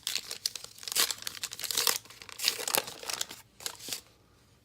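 A baseball-card pack wrapper crinkling and tearing as it is ripped open, with cards handled, in a run of sharp rustles that stops about four seconds in.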